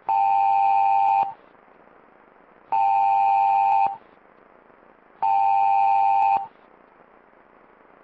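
Three beeps of an Emergency Alert System-style two-tone electronic alert signal, each a little over a second long and about two and a half seconds apart, over a faint steady hiss.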